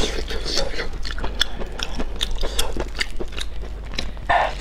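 Close-up eating sounds: biting and chewing cooked octopus tentacles, a steady run of wet clicks and smacks, with one louder burst near the end.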